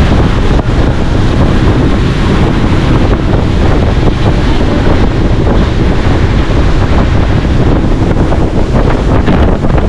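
Loud wind buffeting the microphone on a fast-moving boat, with rushing sea water underneath.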